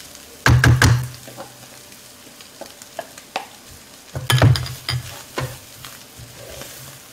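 A wooden spoon scraping and stirring toasted desiccated coconut into a spiced tuna mixture frying in a wok, over a light sizzle. Loud clatters of the spoon against the glass bowl and the pan come about half a second in and again around four seconds in, with lighter scrapes and taps between.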